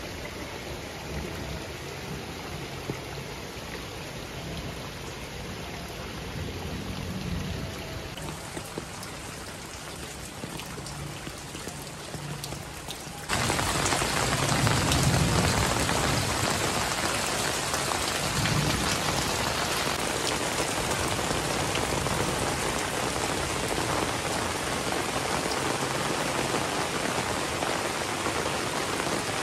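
Heavy rain falling steadily, suddenly louder about halfway through, with low rumbles of thunder soon after the jump.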